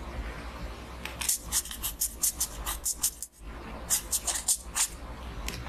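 Pen writing on paper in a notebook: quick scratchy strokes in two runs, the first starting about a second in and the second about four seconds in.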